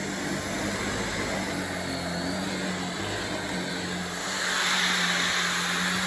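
LG CordZero cordless stick vacuum running, its motorized floor nozzle agitating carpet: a steady hum under a hiss of rushing air. It gets louder and brighter about four seconds in.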